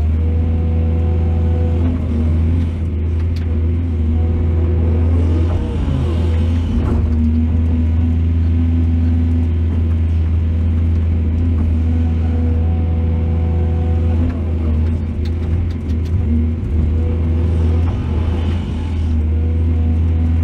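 Excavator's diesel engine running steadily, its pitch dipping and rising briefly twice as it works under load.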